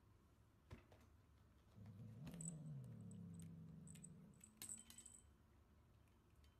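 Faint light clicks and brief jingling as a cat climbs down a carpeted cat tree onto a stool, over a low steady hum that lasts about three seconds in the middle.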